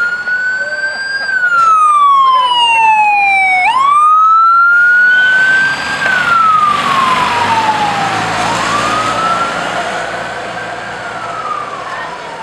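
Electronic wail siren of a miniature fire truck, sweeping up in pitch and then sliding slowly down in cycles of about five seconds. A steady rushing noise joins it about five seconds in, and the siren grows fainter near the end as the truck drives off.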